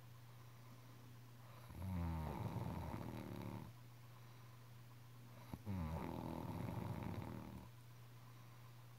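Snoring: two long snores about four seconds apart, each starting with a falling pitch and going on with a fluttering rattle.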